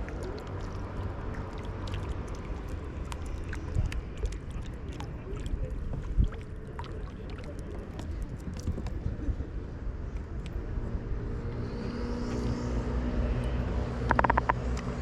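Motor running with a low rumble and scattered light clicks; in the second half a steady hum comes in and the rumble grows louder, as if the motor is drawing closer.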